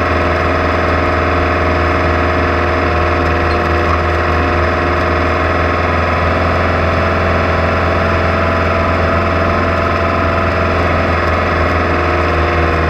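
Off-road race vehicle's engine running steadily at an even speed, with a strong low drone that holds level throughout.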